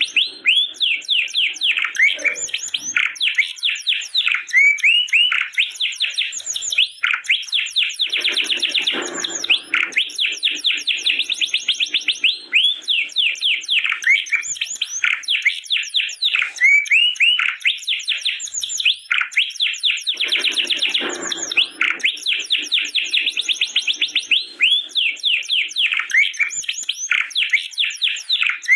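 Domestic canary singing a long, unbroken song of rapid repeated trills and rolls, with harsher, lower-pitched passages about eight and twenty seconds in.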